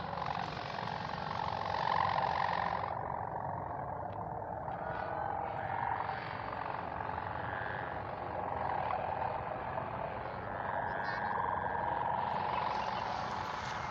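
Kite hummers (sendaren) on kites flying overhead, giving a steady humming drone that wavers slightly in pitch.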